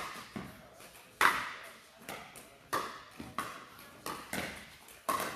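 Pickleball paddles hitting a plastic pickleball in rallies, a series of sharp pocks roughly once a second, each echoing briefly in an indoor court hall; the loudest comes about a second in.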